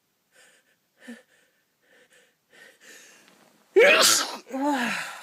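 A person sneezing: a few short, faint catching breaths build up, then one loud sneeze about four seconds in, trailing into a voiced sound that falls in pitch.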